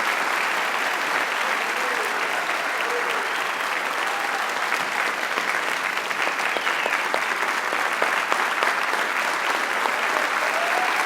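Large audience applauding steadily, a sustained round of clapping from many hands.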